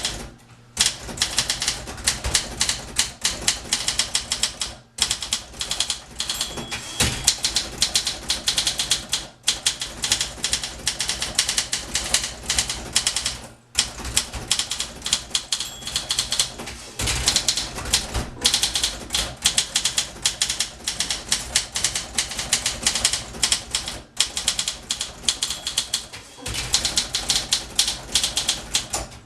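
1961 Olympia SM4 manual portable typewriter being typed on: a rapid, dense stream of key and typebar strikes, broken by short pauses every few seconds.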